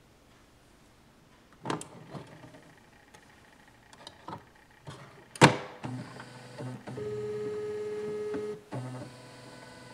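Dymo DiscPainter disc printer being loaded: clicks as the lid is lifted and a disc set on the spindle, then the lid snaps shut with a loud click about five seconds in. The printer's mechanism then starts up with whirring and a steady whine lasting about a second and a half.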